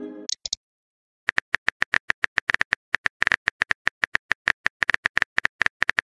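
Texting-app keyboard typing sound effect: a run of quick clicks, several a second, starting about a second in after a short pause. Just before the pause, the tail of a message chime fades and two short high blips sound.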